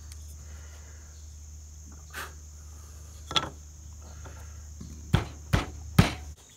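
Crickets trilling steadily, with a few sharp knocks: two spaced apart, then three louder ones in quick succession near the end.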